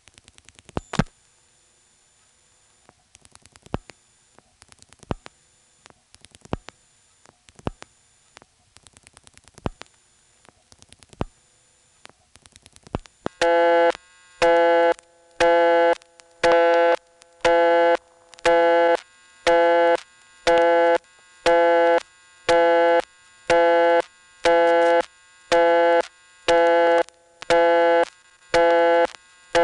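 Faint clicks in spaced groups as digits are dialed through a Stromberg-Carlson XY callback circuit, which lets little of the call progress through. About 13 seconds in, a loud local busy signal starts, a low pitched tone going on and off about once a second; it shows the whole number has been dialed.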